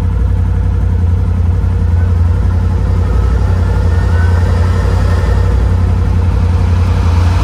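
Polaris RZR Pro XP's turbocharged twin-cylinder engine idling steadily.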